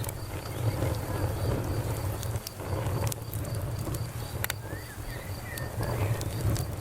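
Campfire burning, with wood crackling in scattered sharp pops over a steady low rumble. A cricket chirps in a steady, even pulsing train throughout, and a few short high chirps come about five seconds in.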